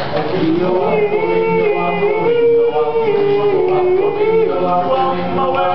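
Four-man a cappella group of teenage boys singing in harmony, holding long, gliding notes over a low, pulsing bass part.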